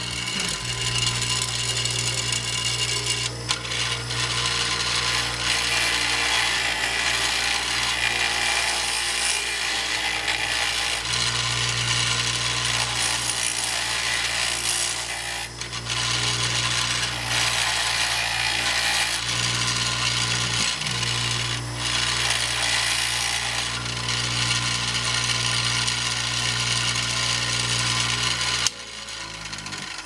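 A small bench grinder runs with a steady motor hum while a metal bicycle part is pressed against its wheel, making a continuous grinding rasp. The part is being ground down by about a millimetre so it will slide into the fork. The grinding stops abruptly near the end.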